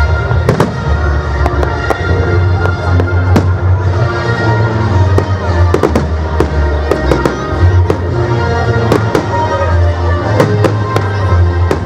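Fireworks going off in quick succession, many sharp bangs and crackles, over loud music with a heavy bass line.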